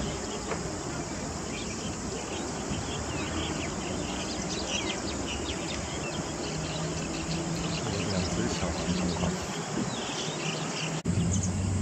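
Open-air creek-side ambience: a steady background hiss with many short, high chirps, thickest in the middle stretch, and a low hum. Just before the end it cuts abruptly to a louder low hum.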